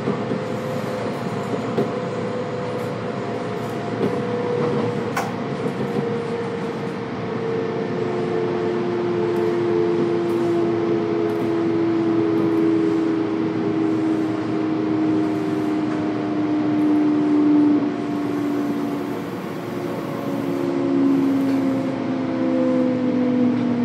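Running noise inside a Kintetsu electric train: the traction motors' whine falls steadily in pitch as the train slows, over the steady rumble of the car on the rails.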